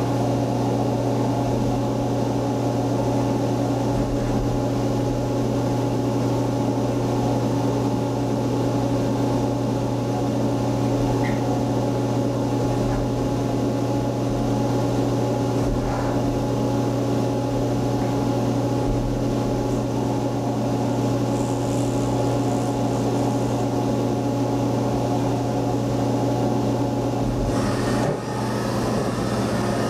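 CNC vertical milling machine running its program: a steady low machine hum while it moves a marker over paper. Near the end there is a brief clunk, and the hum dips for a moment.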